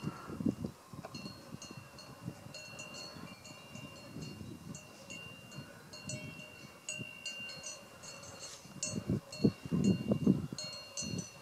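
Cowbells on grazing cattle clanking irregularly, several bells ringing at a few different pitches, with wind buffeting the microphone in gusts that grow stronger near the end.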